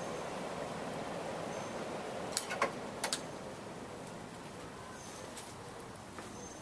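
Supreme Fans JCSB-52 ceiling fan running with a steady whir, joined by four sharp clicks a little over two seconds in, after which the whir eases slightly.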